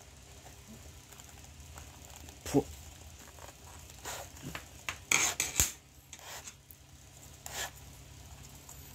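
Leather glove web and lace being handled while relacing: a few short scrapes and knocks, the loudest about two and a half seconds in and a quick cluster about five seconds in.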